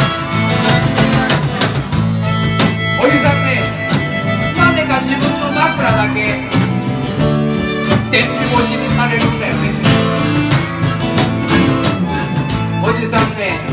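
Jug band playing an instrumental break between sung verses: strummed acoustic instruments keep a steady beat under a lead line that bends in pitch.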